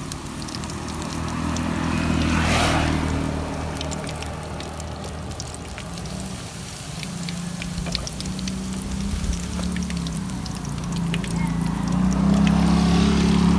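Beaten egg frying in a wok of hot oil for telur gulung, with crackling and sizzling as the egg is ladled in and rolled onto a skewer. A low motor hum runs underneath and is loudest near the end.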